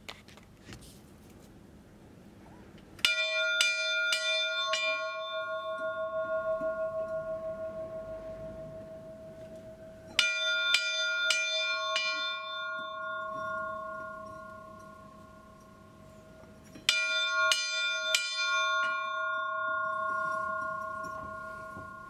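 Church bell struck by its clapper in three quick clusters of about four strokes each, some seven seconds apart. Each cluster leaves a long, slowly fading ring. Heard close up inside the wooden bell tower.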